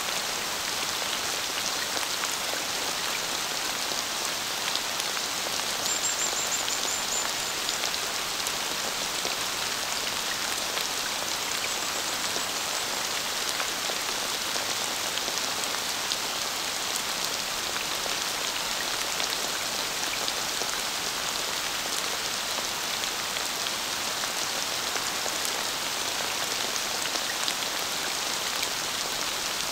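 Steady rain with an even patter of drops: the rain ambience of the raining variation of visionOS's Mount Hood environment.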